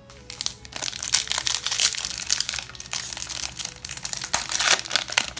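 Foil wrapper of a hockey card pack crinkling and crackling as it is pulled and torn open by hand.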